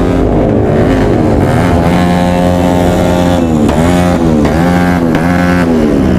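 Superbike engine held at high revs, its pitch dipping briefly and climbing back again and again, about twice a second in the second half.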